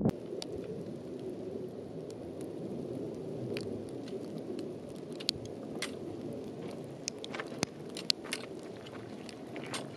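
Hiker's footsteps on loose rock and gravel: scattered sharp clicks of stones over a steady low rush.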